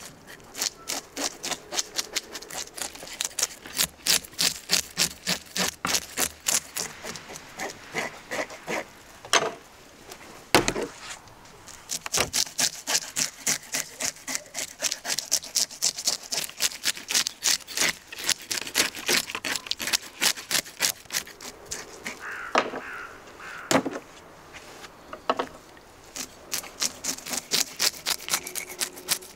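A knife scraping scales off a whole fish on a wooden cutting board, in quick repeated strokes about three a second, with a few louder knocks.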